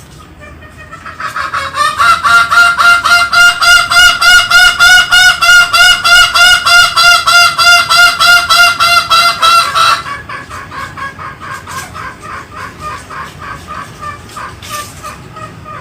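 Green junglefowl calling in a rapid run of short repeated calls, about four a second. The calls grow loud about two seconds in, drop off sharply about ten seconds in, and carry on more faintly.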